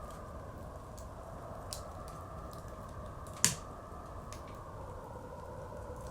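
Wood fire crackling with scattered small pops and one loud snap about three and a half seconds in, over the steady whistling howl of blizzard wind.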